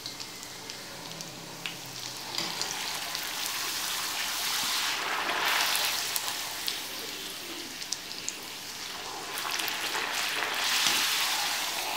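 Semolina puris deep-frying in hot oil, a steady sizzle that swells louder around the middle and again near the end as they are pressed and puff. A few light clicks sound over it.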